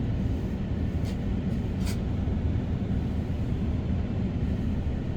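A car driving, heard from inside the cabin: a steady low engine and road rumble, with a couple of faint light ticks about one and two seconds in.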